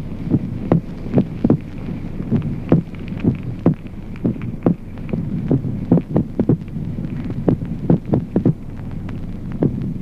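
Human heart sounds heard by auscultation: repeated lub-dub beats in which the second sound is doubled into two close clicks, over a steady low hum. The split second sound and uneven beats are those of ventricular extrasystoles.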